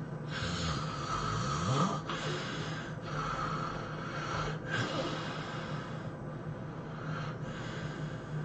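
A person snoring heavily: a run of long, harsh breaths, each about a second or more, with brief breaks between them, growing weaker after about six seconds.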